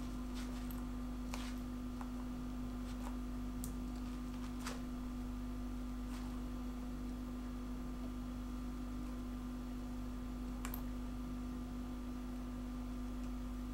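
Steady low electrical hum with a few faint, scattered clicks from hands working a thin cord loose from a small fitting.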